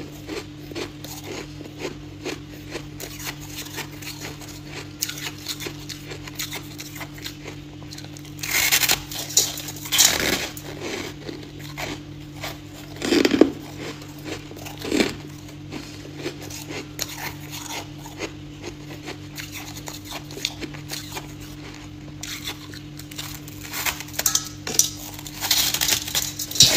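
Close-miked chewing and crunching of powdery white frost-ice: a steady run of small crackling crunches, with louder bites about nine and ten seconds in, around thirteen and fifteen seconds, and again near the end. A faint steady hum lies beneath.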